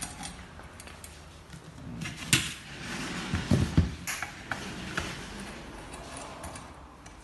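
Screwdriver driving screws into a steel leg frame, with scattered light metal clicks and knocks as the frame parts are handled on cardboard, a cluster of them a couple of seconds in.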